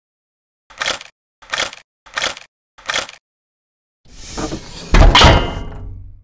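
Logo sound effects: four short whooshes about two-thirds of a second apart, then a swelling whoosh that ends in a loud, deep hit with a ringing tail.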